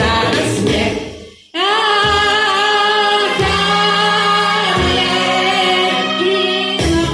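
Pop song with a singer: the backing music fades out about a second and a half in, then one long held sung note rises in over sustained chords that change twice, and the full band comes back in near the end.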